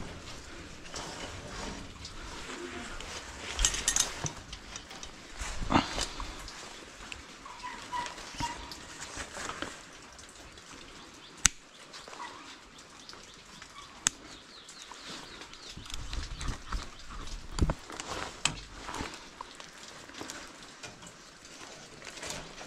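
Hands working a fibre-optic drop cable with a hand tool: scattered rustling and knocks, with two sharp clicks about halfway through.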